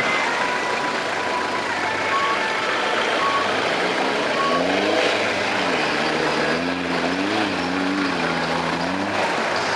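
A 4x4 off-road vehicle's engine revving, its pitch rising and wavering up and down from about four seconds in, over a steady wash of noise. Short high beeps sound roughly once a second in the first half.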